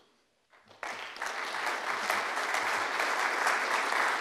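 Audience applauding, the clapping starting just under a second in and holding steady.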